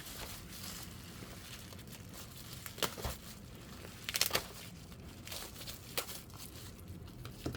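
Plastic and paper packaging being handled as a taped-up parcel is opened: faint rustling and crinkling, with a few short sharp crackles, the loudest just under three seconds in and at about four seconds.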